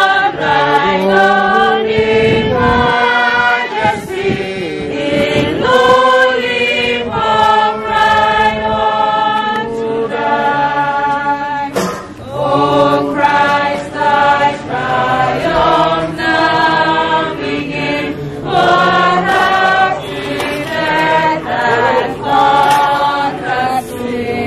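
Church choir singing together, several voices holding long notes, with a short break about twelve seconds in.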